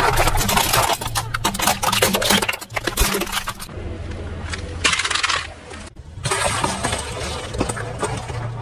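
A car tyre rolling over and crushing plastic toy trucks, with dense cracking and snapping for the first three and a half seconds. A short burst of crunching follows about five seconds in. Another object is squashed from about six seconds in, with the car's engine running low underneath throughout.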